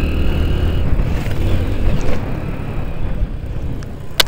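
Motorcycle engine running with a steady low hum that slowly gets quieter, and a single sharp click near the end.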